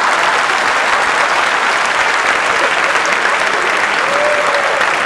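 Audience applauding: steady, dense clapping that holds at one level throughout.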